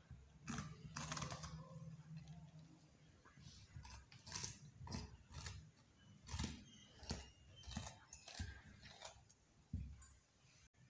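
Beagle puppy chewing a raw bitter melon: faint, irregular crunches as its teeth bite into the bumpy rind.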